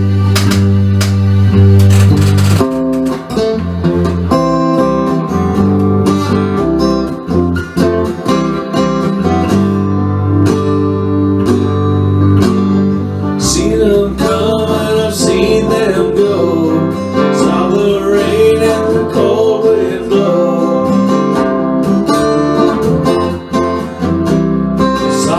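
Instrumental blues song intro: strummed acoustic guitar over a bass line with sharp percussive hits. A wavering lead melody comes in about halfway through.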